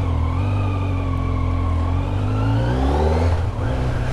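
Kawasaki Z900's inline-four engine running as the motorcycle rides off. The engine note rises about two and a half seconds in, then dips briefly near the end.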